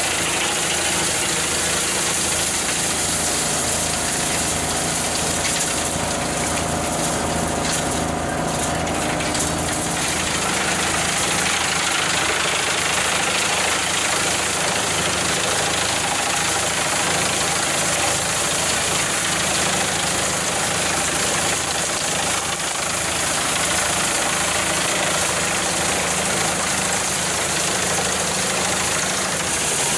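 A large machine's engine running steadily, its sound changing about ten seconds in.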